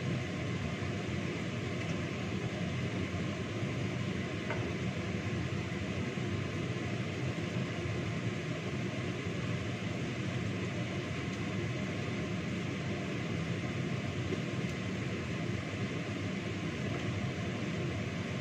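Stone pestle (ulekan) grinding fried sambal ingredients in a stone mortar (cobek): a steady crushing and scraping.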